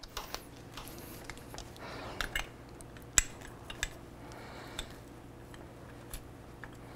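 Brake pad clicking and scraping against the metal of a motorcycle brake caliper as it is worked loose by hand. Scattered light clicks, with one sharper click about three seconds in.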